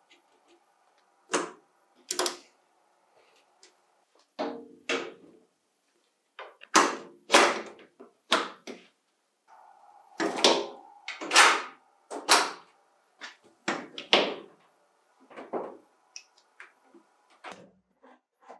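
Steel door and latch of a sandblasting cabinet being opened and shut: a series of sharp metal clunks and knocks, about a dozen, spread over several seconds.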